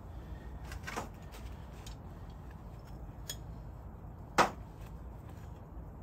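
Metal hand tools being handled beside a steel drip tray: a few faint knocks and one sharp clink about four and a half seconds in, over a low steady background rumble.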